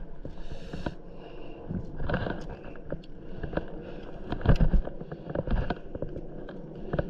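Handling noise from a hand-line fishing winder being turned to pay out line: irregular clicks and knocks, with a heavier low thump about four and a half seconds in.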